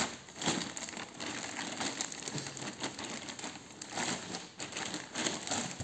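Thin black plastic bag crinkling and rustling in uneven bursts as it is handled and pulled open.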